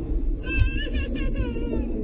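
A high, wavering cry, a person's voice, starting about half a second in and trailing off near the end, over a low steady rumble.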